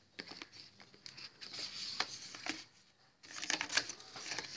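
Plastic wrap and cardboard packaging of a phone box rustling and crinkling as the box contents are handled and taken out, in two bouts with a short pause about three seconds in.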